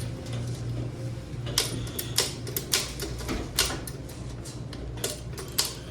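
A handful of sharp, irregular clicks and clacks, about six in all, over a steady low hum.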